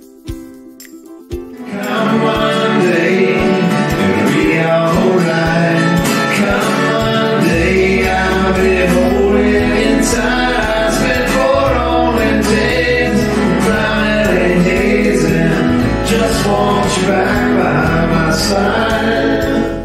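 A man sings an island-style acoustic song to acoustic guitar. The music comes in a second or two after a quiet start, and a deep bass part joins about a third of the way through.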